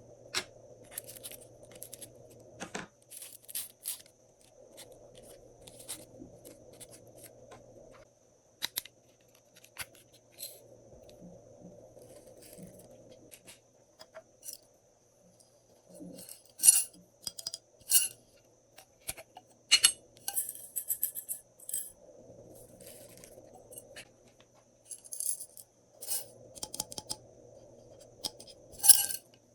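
Small hard objects clicking and clinking against a container as items are added to slime, in scattered bursts with a few sharper clinks in the second half.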